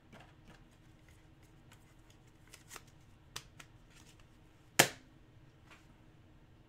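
Quiet room tone broken by a few soft clicks and one sharp tap about five seconds in.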